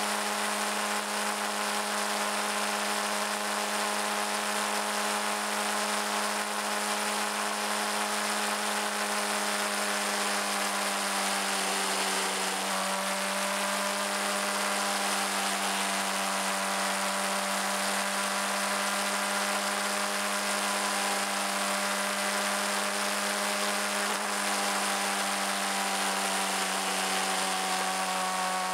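Suzuki GSX-R600's inline-four engine running at a steady highway cruise, a constant high whine, with wind rushing over the microphone. Its pitch dips slightly about twelve seconds in and shifts a little again near the end.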